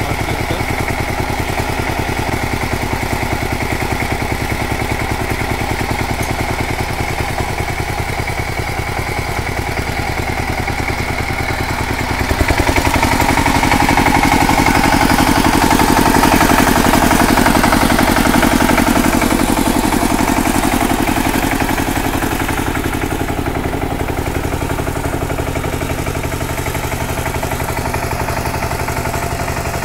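Two-wheel power tiller's single-cylinder diesel engine running steadily at low speed. About twelve seconds in the throttle is opened and it runs louder and faster for several seconds, then eases back down.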